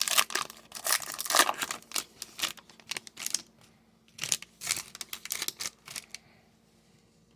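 Trading card pack wrapper being torn open and crinkled by hand, a dense run of sharp crackles that stops about six seconds in.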